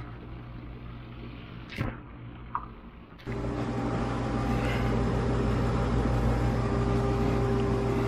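Dishwasher running, its tub overfilled with suds from liquid dish detergent: a steady machine hum. A quieter hum with a single click comes first, then the hum comes in louder and fuller about three seconds in.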